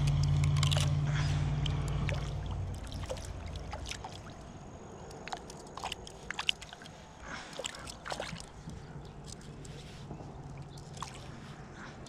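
A boat's motor drones low and steady and fades away over the first few seconds. After it, small clicks and rustles come from hands handling fishing line and a stick among the shoreline rocks and dry grass.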